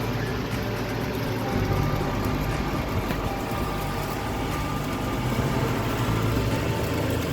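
Steady low motor hum with a whirring noise, as of a small electric fan and water pump running continuously.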